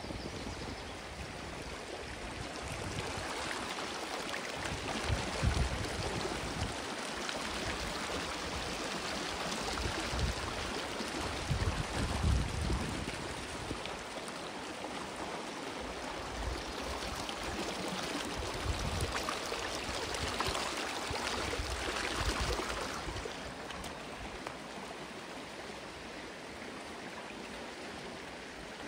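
Oak Creek's water rushing and splashing over rocks in a steady wash, with low rumbles of wind on the microphone now and then; the rush eases slightly near the end.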